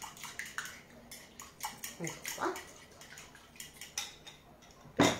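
Metal spoon stirring an oil and herb dressing in a ceramic bowl, with light clinks against the bowl, then a single louder knock near the end.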